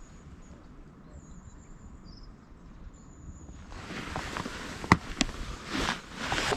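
Handling and movement noise: rustling and brushing that swells up over the second half, with two sharp clicks close together and a swish. Faint high chirps sound in the quieter first part.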